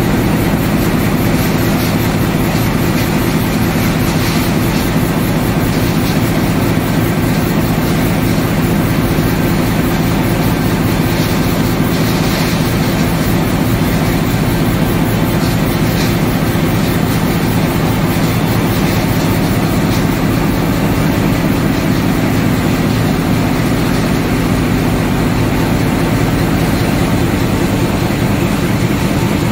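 Dinglong 924 flexo folder gluer casemaker running in production: a loud, steady mechanical rumble with a constant clatter that never lets up.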